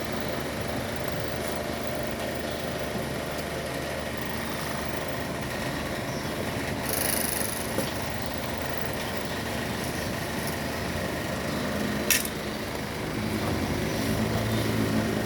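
Steady mechanical hum with several steady tones, a short hiss about seven seconds in, and a sharp click about twelve seconds in; the low hum grows louder near the end.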